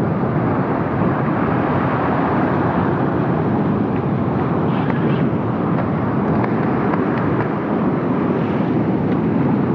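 Steady rushing noise of wind and surf at the shoreline, even throughout, with no clear rhythm or tone.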